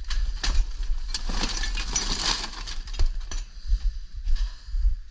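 Irregular knocking and clattering of hard objects being handled, over a constant deep rumble.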